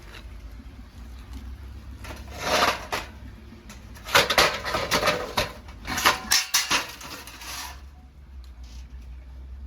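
Metallic clattering and knocking in three bursts of a second or so each, typical of firewood and parts being handled in and around a homemade pail-can wood stove.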